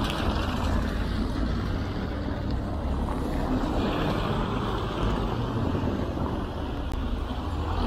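Steady noise of a rainy street: tyres hissing on wet brick paving as cars pass, over a deep rumble of wind on the microphone.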